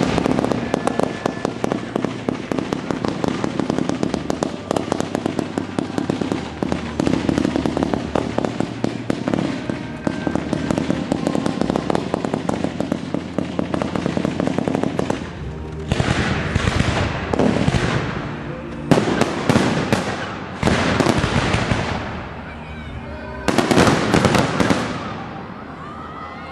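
Fireworks. For about the first fifteen seconds there is a dense, continuous crackling. Then aerial shells go off one after another in loud bursts, each followed by a fizzing crackle as the gold stars burn out.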